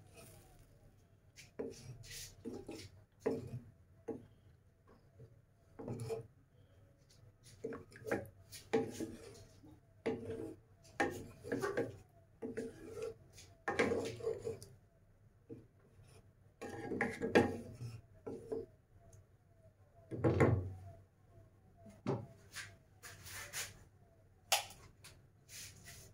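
A spatula scraping and knocking against a cooking pan as the chicken legs are stirred, just after plenty of water has been added to the masala. The scrapes and knocks come irregularly, with a few louder strokes.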